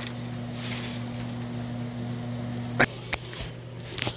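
Steady low hum of a running motor, with a few sharp clicks about three seconds in and again near the end.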